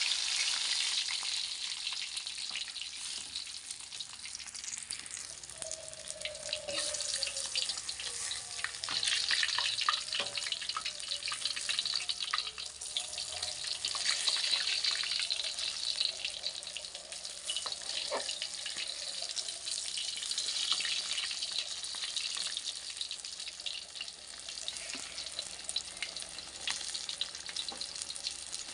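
Red arowana steaks deep-frying in hot oil in a metal wok: a steady sizzle, broken by scattered clicks and scrapes of a metal spatula turning the pieces.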